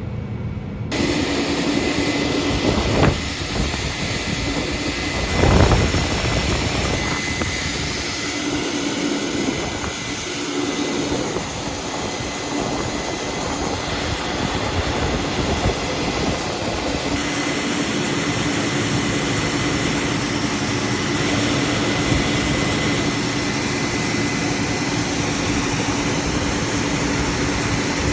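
Heavy farm harvest machinery running steadily at corn harvest, with a constant engine hum and a high whine. Two louder thumps come about three and five and a half seconds in.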